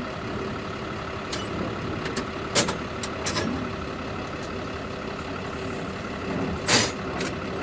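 An engine idling steadily, with a few sharp clicks and a louder short burst of noise about seven seconds in.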